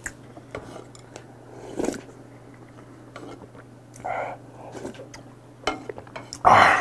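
Wooden spoon clicking against a soup bowl as soup is spooned up and slurped, with chewing between. A loud slurp comes near the end.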